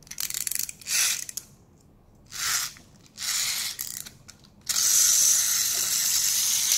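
Clockwork mechanism of a wind-up toy dolphin: several short bursts of ratchet clicking as the spring is wound, then, nearly five seconds in, a steady whirring as the spring motor runs.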